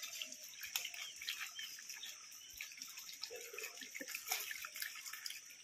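Many small fish splashing and flicking at the water surface inside a net enclosure in a pond: a faint, continuous patter of tiny splashes and drips.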